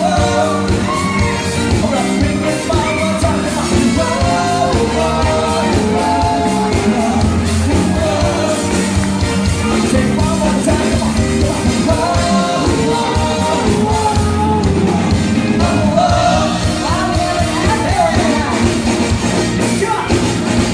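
Live band playing a song: a male lead vocal singing over electric guitar, bass guitar and a drum kit, amplified through stage speakers.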